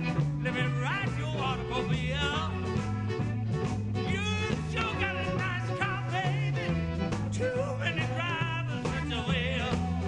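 Live band playing a swing-style rock-and-roll song: a man sings at the microphone with a wavering vibrato over electric guitar and a bass line stepping from note to note.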